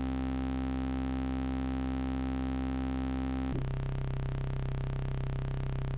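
Software synthesizer playing a sustained tone from a saw-wave oscillator mixed with a triangle-wave oscillator. The tone changes once, about three and a half seconds in.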